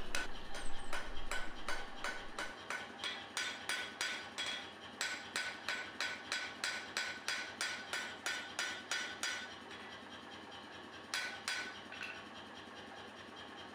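Hand hammer striking a red-hot steel knife blade on an anvil, about three ringing blows a second. The blows stop about three-quarters of the way through, with two last strikes shortly after.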